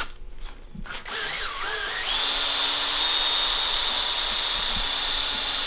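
Power drill running steadily, spinning a length of 14-gauge wire to straighten it. It starts up about two seconds in.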